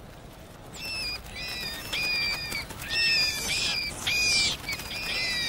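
Several rats squeaking: a quick run of short, high squeaks that overlap one another, starting about a second in, with a brief hissy burst around the middle.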